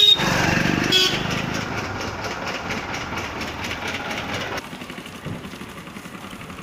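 Street traffic: motor vehicle engines running in the background, with two short sharp sounds in the first second or so. The noise drops to a quieter level after about four and a half seconds.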